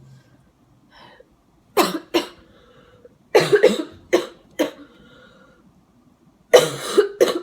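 A person coughing repeatedly, about eight short, harsh coughs in three bouts. It is a lingering cough left over from the flu.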